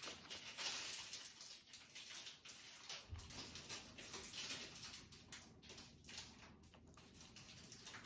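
Faint, irregular scratching of a thick marker tip drawn across the plastic film of a rice bag.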